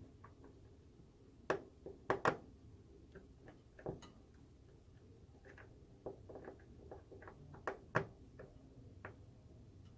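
Irregular small clicks and ticks as fingers work thin wires into a green plastic terminal-block connector. The loudest cluster of clicks comes about two seconds in, with another sharp one near the end.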